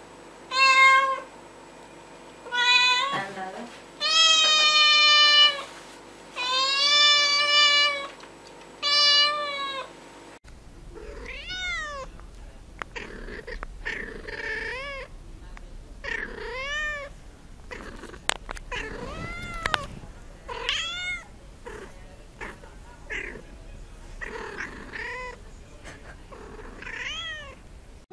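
Cats meowing. A black-and-white kitten gives about five loud, drawn-out meows. After a cut, a brown-and-white cat close to the microphone keeps up a quick run of shorter, quieter meows, each rising and falling in pitch.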